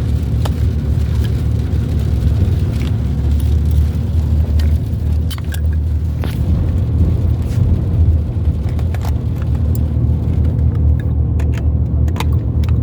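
Steady low rumble of a car on the road, heard from inside the cabin, with scattered light clicks and taps.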